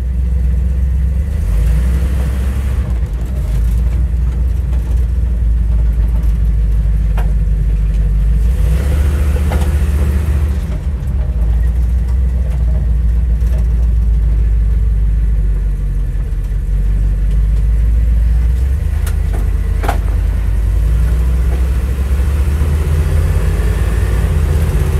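A 1971 International Scout II's engine, fitted with Sniper EFI, running under way on a test drive, heard from inside the cabin: a steady low rumble with a few short clicks, and a tone rising in pitch near the end as it picks up speed.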